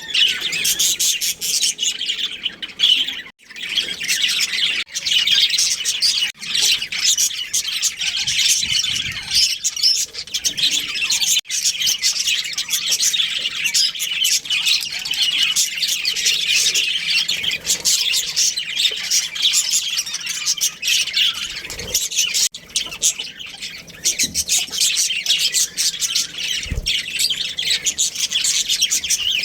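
Budgerigars chirping and chattering in a dense, high-pitched stream, with a short break about three seconds in.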